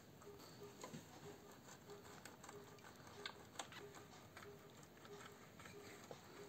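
Faint, soft scratching of a hand-held metal box grater grating boiled egg, with scattered light clicks and taps of the grater.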